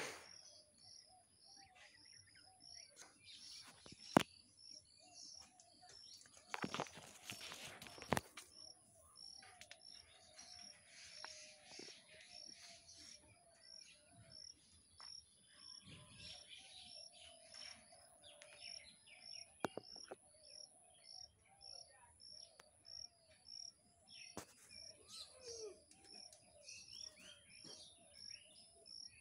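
Birds calling: a short high chirp repeated evenly about twice a second, with other softer bird calls. There is a brief rustling noise about seven seconds in.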